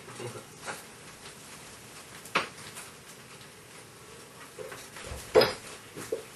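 A few separate sharp knocks and clinks, like small objects being handled or set down, the loudest about five and a half seconds in.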